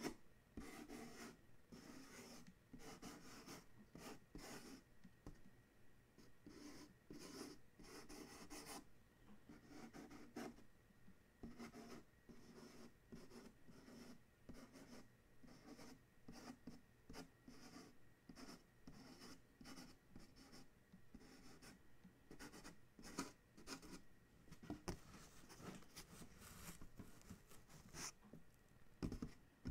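Faint finger tracing and scratching over the printed face of a cardboard shipping box: a run of short, soft strokes, with a few sharper, louder ones near the end.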